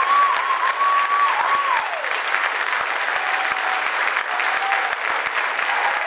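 Concert audience applauding steadily, with a long whistled cheer held near one pitch for about two seconds and then sliding down, and a few fainter whistles after it.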